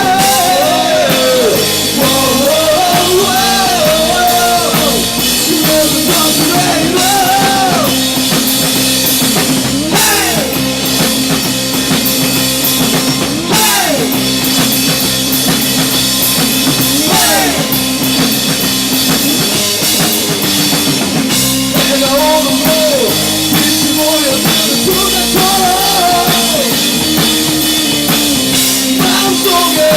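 Rock band playing a song: drum kit, electric guitar and a singing voice, with the melody sliding down in pitch several times.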